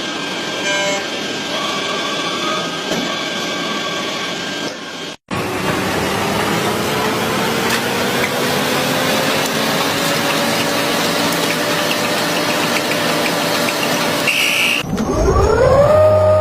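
Machinery running, in three parts split by sudden cuts. First a steady mechanical hum. Then a whirring motor whose pitch slowly rises over several seconds. Near the end, a motor spins up quickly and settles at a steady pitch.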